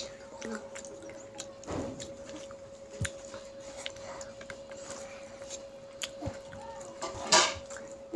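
A child eating rice and curry with his hand: small clicks and smacks of chewing and of fingers working the rice on the plate, over a steady electrical hum, with one louder noise near the end.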